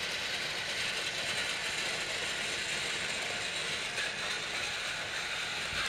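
Battery-powered TrackMaster toy train's motor and plastic gears whirring steadily as it runs along plastic track.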